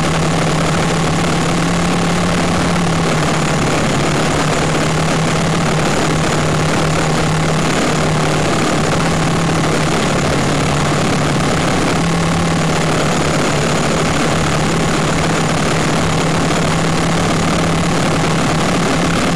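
Quadcopter motors and propellers in flight, a steady drone with a low hum under a constant hiss and no change in loudness.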